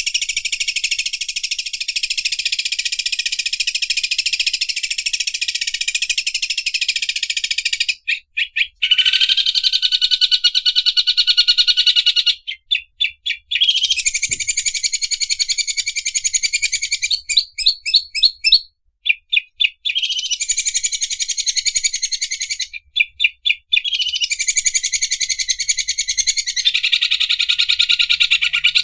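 Cucak ijo (green leafbird) singing its 'mesin obras' song, named for an overlock sewing machine: long, very rapid, buzzy high trills running several seconds each. They are broken by short gaps filled with quick runs of separate chipping notes, about eight, thirteen, eighteen and twenty-three seconds in.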